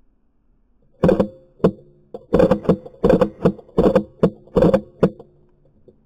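Airsoft rifle firing a string of about a dozen rapid semi-automatic shots at uneven spacing, each shot sharp and followed by a brief metallic ringing of the gun and its scope mount.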